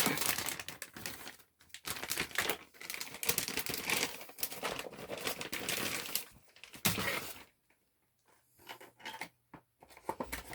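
Packaging being opened by hand: dense crinkling and tearing for about seven seconds, then a few quieter rustles and knocks.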